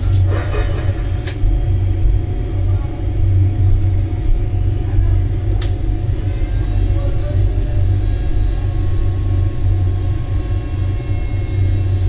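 A steady low mechanical rumble with a faint hum, and one sharp click about six seconds in.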